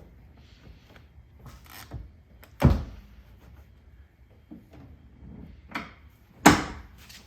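Knocks and thuds inside a car: two loud thuds about two and a half and six and a half seconds in, with a few lighter knocks between.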